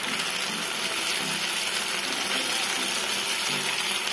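Marinated boneless chicken pieces shallow-frying in hot oil in a nonstick pan: a steady sizzle.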